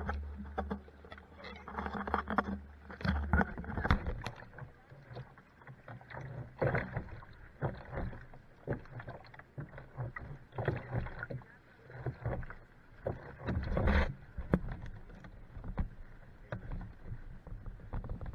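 Water slapping and splashing against a small boat's hull, with irregular knocks and bumps of the loose camera against the hull. A low hum runs under the first three seconds.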